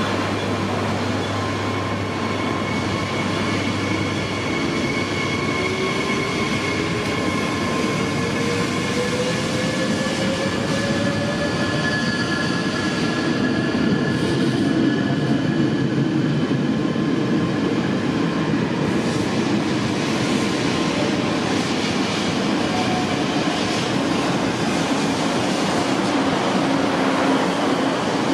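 A Regio 2N double-deck electric train (Z 57000) pulling away from the platform and gathering speed. A whine rises in pitch over the first dozen seconds under the steady running noise of the wheels on the rails.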